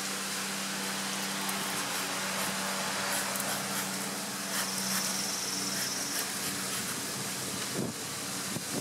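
Honey bees humming steadily around an opened hive, over a hiss of smoke from a bee smoker puffed across the inner cover.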